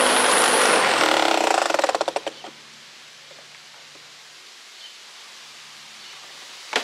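Gas push lawn mower engine running, then shut off about two seconds in, coasting to a stop in slowing pulses. After that there is only faint outdoor background, and one sharp knock near the end.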